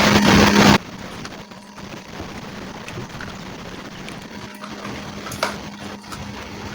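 Small electric air-mattress pump motor running with a steady whir and hum, then switched off under a second in. Faint hiss and a few light clicks follow.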